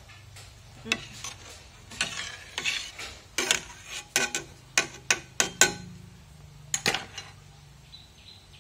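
A metal ladle stirring milk and diced aloe vera in a pot, knocking and scraping against the pot in irregular strokes. The stirring stops about seven seconds in.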